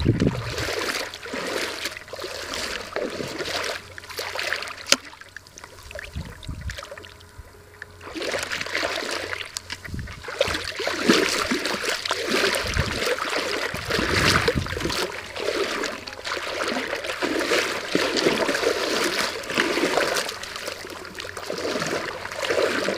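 Shallow seawater sloshing and splashing in irregular surges as someone wades through it, louder and busier from about eight seconds in.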